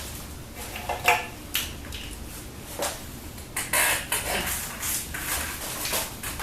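Irregular metallic clinks and clanks of tools and parts being handled, about a dozen separate knocks.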